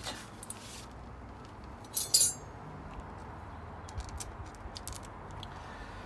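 Small metal parts clinking as they are handled at a bicycle's rear axle. One sharp double clink about two seconds in is the loudest, with a few light metallic ticks later.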